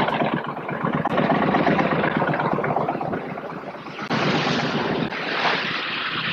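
Wind buffeting the microphone over the sea's rush, with a sudden shift in the noise about four seconds in.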